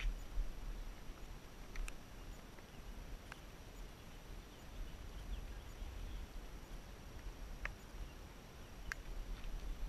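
Wind buffeting the microphone as a low, uneven rumble, with a few faint, short high ticks scattered through.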